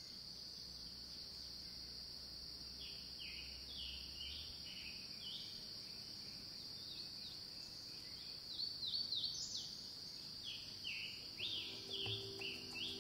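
African painted dogs twittering: a run of short, high, falling chirps, several a second, that grows louder about two-thirds of the way through, over a steady high-pitched hum.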